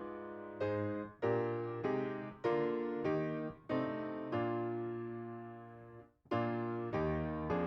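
Piano playing a hymn tune in chords, each struck and decaying; a phrase ends on a long held chord that fades to a brief break about six seconds in, and the next phrase begins.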